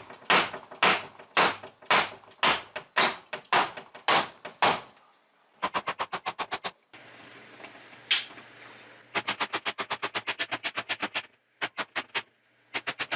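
A hammer striking a kitchen base cabinet to knock it apart: a run of about nine blows, two a second. After a pause come quick runs of fast, even taps, about ten a second, with a few single blows in between.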